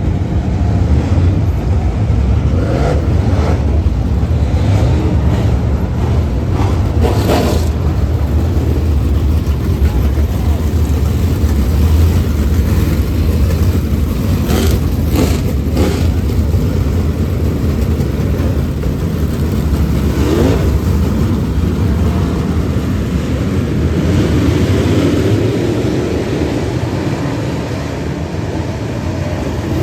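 Dirt Late Model race car's V8 engine running at speed in a steady, loud drone, with a few sharp knocks about 7 and 15 seconds in.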